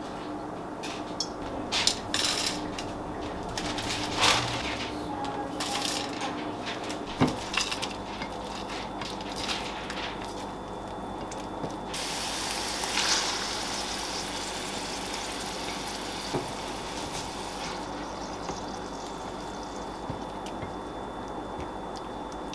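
Kitchen work: scattered clinks and knocks of dishes and utensils, then a tap running for about six seconds before it stops.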